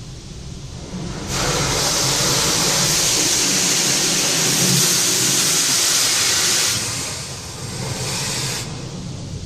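Automatic car wash heard from inside the car: a loud rushing hiss against the car's body comes in about a second in, holds steady for several seconds, then eases off near the end.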